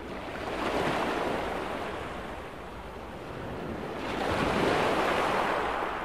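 Surf: two waves rush in one after another, the first peaking about a second in and the second, a little louder, near the end.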